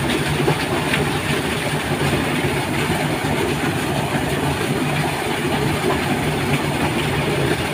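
Water gushing steadily out of a large steel discharge pipe and splashing into a concrete channel: a constant, unbroken rushing noise with a low hum underneath.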